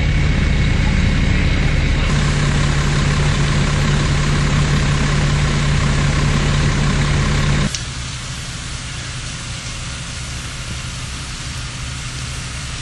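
Fire engine running steadily with a low hum. About eight seconds in the sound cuts off abruptly, leaving a quieter, steady rushing noise.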